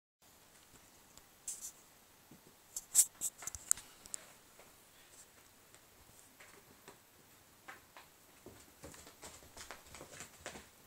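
Cats batting a small toy mouse around: a scatter of light taps and clicks, with a quick cluster about three seconds in and more through the last few seconds.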